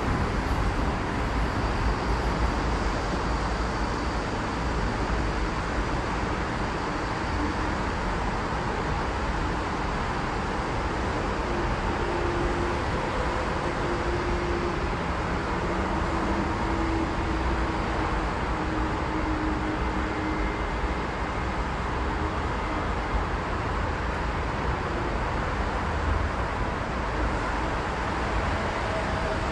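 Steady city road-traffic noise, a continuous wash of passing vehicles with a faint hum.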